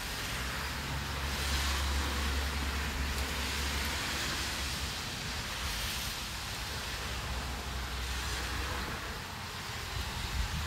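Light rain falling, a steady hiss that swells and eases a little, with a low rumble underneath that is strongest in the first few seconds.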